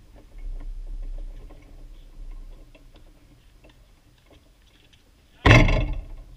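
Sounds of outdoor tennis play: faint scattered ticks and a low rumble, then a sudden loud hit about five and a half seconds in that dies away within half a second.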